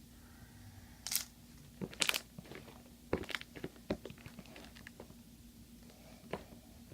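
Slime being squished and pulled by hand, giving a few short crackly pops and squelches. The loudest come about one and two seconds in, with smaller ones after.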